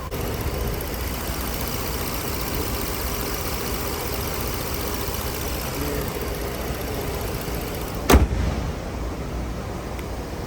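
Car engine idling steadily with the air conditioning running on a newly fitted compressor. A single sharp knock about eight seconds in.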